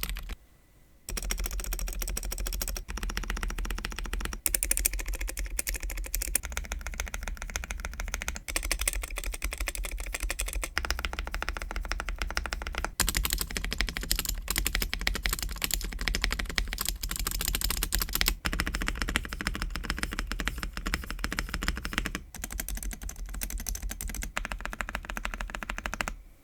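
Fast continuous typing on an Ikki68 Aurora mechanical keyboard with Kiwi tactile switches and a polycarbonate plate: a dense run of keystroke clacks. It pauses briefly about a second in, and the tone of the clacks changes at short breaks near the middle and near the end.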